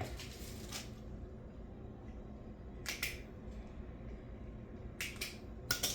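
Small pliers working at the clamp on a lawnmower fuel line: about four short, sharp clicks, spread a second or two apart.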